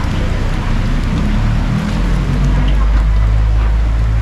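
Hot oil in a commercial deep fryer sizzling steadily as takoyaki balls fry in a wire basket, over a loud, steady low hum.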